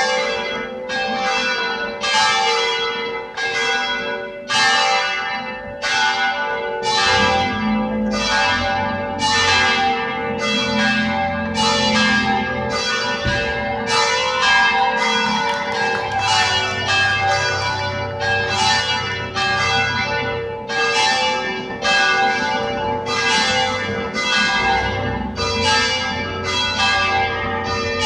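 Church bells pealing for a wedding: a rapid, continuous run of overlapping strokes, about two a second, each leaving a long ring.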